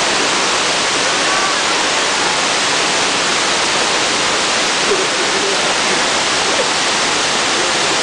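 Shiraito Falls: many thin streams of water pouring down a wide rock face, making a steady, loud rush of falling water.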